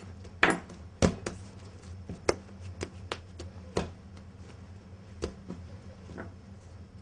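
A kitchen knife knocking on a wooden board and hands handling dough as bread dough is cut into pieces: a series of sharp, irregular knocks, the loudest about half a second and a second in, over a low steady hum.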